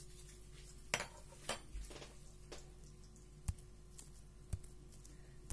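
Kitchen handling sounds as fish pieces are turned in balsamic marinade in a ceramic bowl: a handful of light, scattered clicks and knocks against the bowl.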